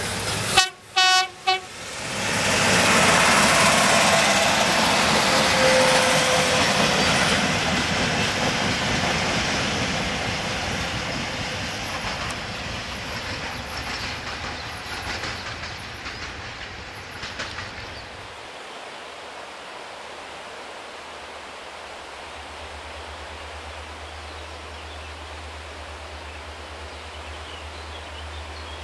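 Two-car diesel multiple unit sounding its horn in three short blasts about a second in, then passing close by with engine and wheel noise and a rhythmic clickety-clack over the rail joints. The noise fades away after about 18 seconds.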